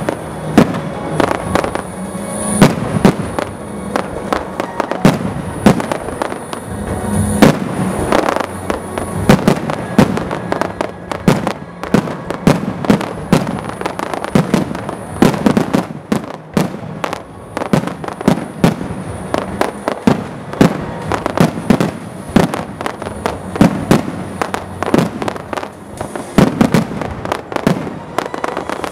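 Aerial fireworks shells bursting in quick succession: a dense, continuous run of loud, sharp bangs, several a second, with no let-up.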